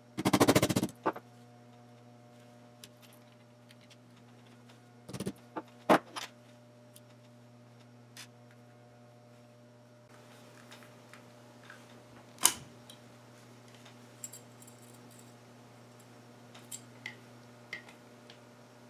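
Metal parts of a partly dismantled Umarex Colt SAA CO2 revolver clicking and clinking as they are handled. A quick rattle of clicks comes in the first second, then a few separate sharp knocks, the loudest about twelve seconds in, and light ticks near the end.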